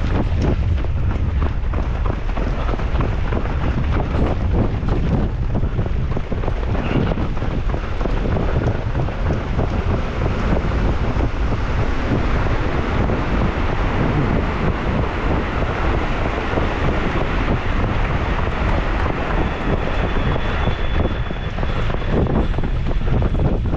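Strong wind blowing across the microphone, a loud, steady rush with heavy low buffeting.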